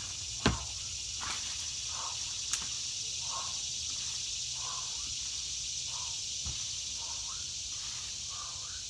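A broom swung side to side as a kayak paddle, its bristles swishing against the ground and plants about once a second, with a sharp knock about half a second in. Steady high-pitched insect noise, crickets or cicadas, runs underneath.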